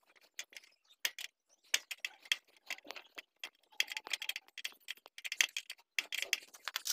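Light, irregular metal clicks and clinks of a 10 mm T-handle socket wrench turning and tightening the seat-bracket bolts on a motorcycle frame. The clicking gets busier in the second half.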